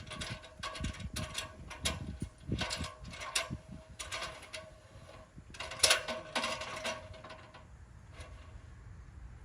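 Irregular metallic clinks and rattles that ring briefly, as metal parts are handled and knocked together. The loudest clank comes about six seconds in, and the clatter dies away shortly after.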